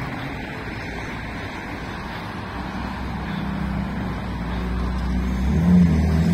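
Street traffic: a car engine's low hum grows louder over the second half as it approaches, loudest shortly before the end.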